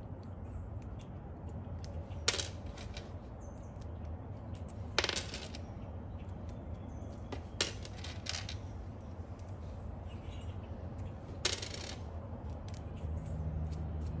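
Small steel #8 and #10 machine-screw nuts being dropped one at a time onto sorted piles, each landing with a sharp metallic clink. There are about five clinks, a few seconds apart, over a low background hum.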